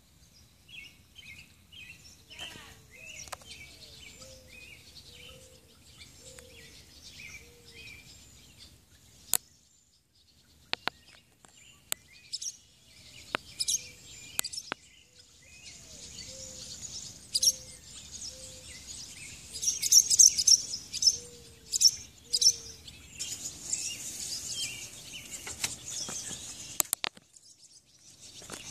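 Several birds singing and chirping over a faint low background hiss, with a lower series of short repeated notes. A few sharp clicks cut in at irregular moments.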